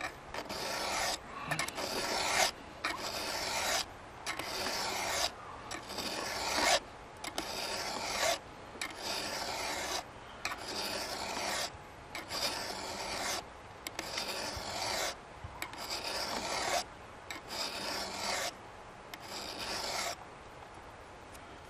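Round chainsaw file rasping across the cutter tooth of a saw chain in a steady series of strokes, each about a second long, stopping near the end: a damaged tooth being filed down to sharpen it and match the other teeth.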